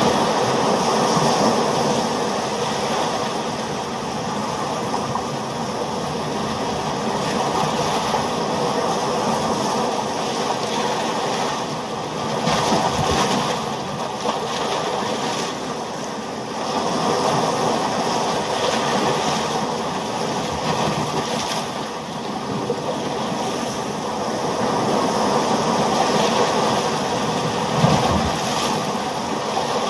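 Ocean surf: a continuous wash of waves that swells and eases every few seconds.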